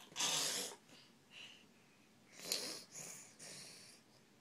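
A series of short, breathy huffs and snorts, five or so, the loudest about a quarter-second in and again near the middle.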